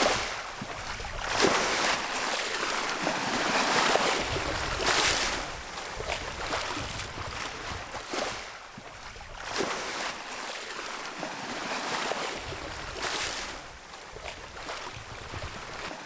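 Sea water rushing and splashing along the hull of a sailboat under sail, rising and falling in surges as the boat moves through the waves, with wind buffeting the microphone.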